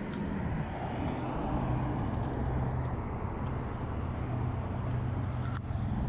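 Street traffic: a steady low engine hum from a road vehicle over the rushing of passing traffic, with a few faint ticks.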